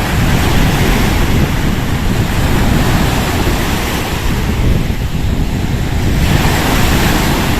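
Wind buffeting the microphone: a loud, constant rumble with a lighter hiss over it.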